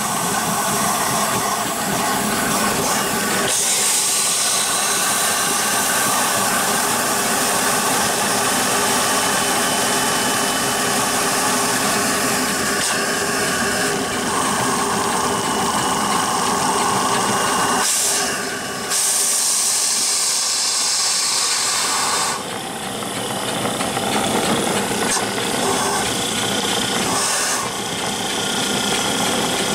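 Small steam engine running on live steam, with a steady hiss of steam and condensate blowing out of it as it runs the water out; the sound dips briefly a little past halfway and settles slightly quieter soon after.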